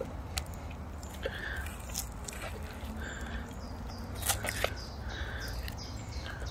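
Light clicks of cutlery against a plate as spit-roasted chicken is pulled apart, over a steady low rumble. An animal calls briefly about every second and a half.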